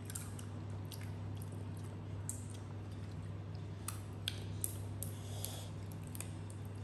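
Close-up eating of sauce-coated crab: wet chewing and sucking of meat from the shell, with scattered sharp clicks and cracks as the crab shell is pulled apart by hand. A steady low hum runs underneath.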